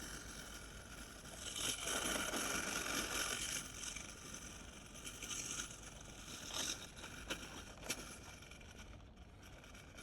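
Faint whir of a Mammotion LUBA 3 robotic lawn mower's electric drive motors as it drives across the yard, louder for a couple of seconds near the start, with a few light knocks later on.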